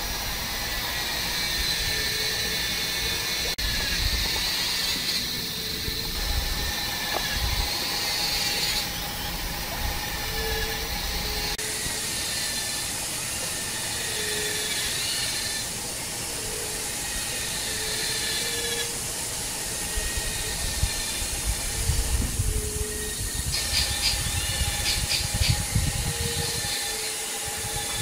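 Shallow forest stream running with a steady hiss, under thin steady insect-like tones. Short low calls repeat every second or two. A low rumble comes in over the last few seconds.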